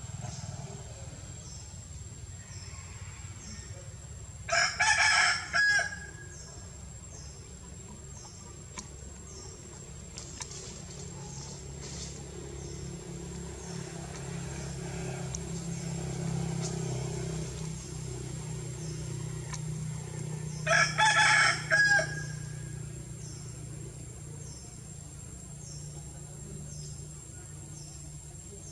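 A rooster crowing twice, about sixteen seconds apart, each crow a loud call of a second or so. Insects chirp steadily under it, and a low hum swells in the middle.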